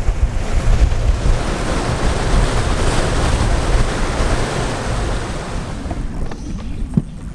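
Bass boat running at speed behind a Mercury Pro XS outboard: a loud, steady rush of wind on the microphone and churning wake water over a low rumble, dying down about six seconds in.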